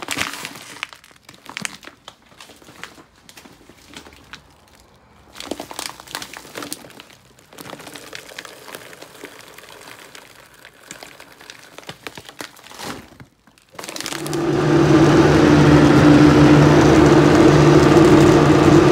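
A plastic bag of frozen wild blueberries crinkles and rustles as the berries are shaken out into a blender jar. About fourteen seconds in, a countertop blender starts and runs loud and steady, blending the frozen fruit and greens into a smoothie.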